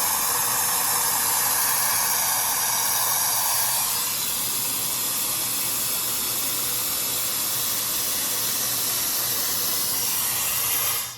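Hair dryer styler's high-speed motor blowing air through its automatic air-curling barrel: a loud, steady rushing hiss with a faint hum. It turns a little quieter and duller about four seconds in, and switches off abruptly near the end.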